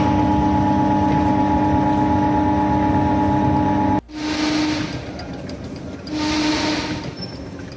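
A slip-ring induction motor and its resistor-bank contactor panel in operation, giving a steady electrical hum with a low tone and several overtones. About four seconds in it cuts to a rushing machine sound that swells twice, from the motor's spinning rotor and coupling.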